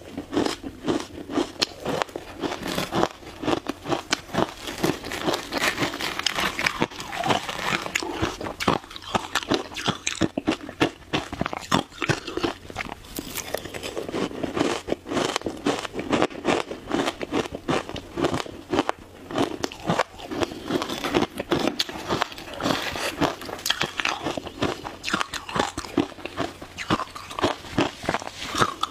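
A person biting and chewing mouthfuls of matcha shaved ice, a dense, unbroken run of crisp crunches.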